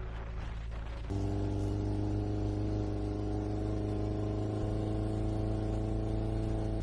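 Dune buggy engine running at a steady speed. It comes in abruptly about a second in as a loud, even hum that holds without rising or falling.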